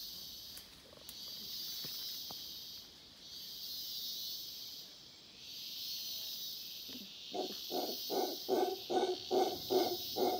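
Howler monkey calling from the forest canopy: a rhythmic series of barking grunts, about two or three a second, beginning about two-thirds of the way through. Under it runs a high insect buzz that swells and fades every couple of seconds.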